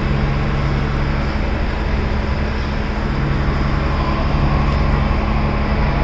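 Passenger boat's engine running steadily, a low drone under the rush of wind and water along the hull.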